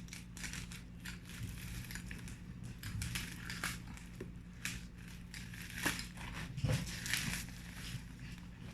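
Plastic packaging crinkling and rustling in irregular bursts as it is handled, over a steady low hum.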